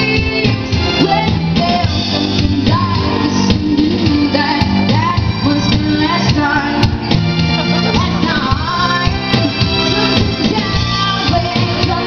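Live band music: a woman sings a pop ballad into a microphone over an electric guitar and backing music.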